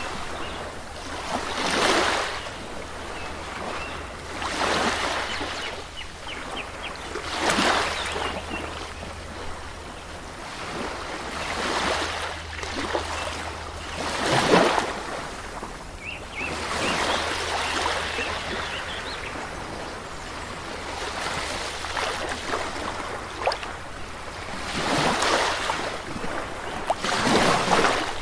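Ocean surf: waves washing onto a beach, swelling and fading every few seconds.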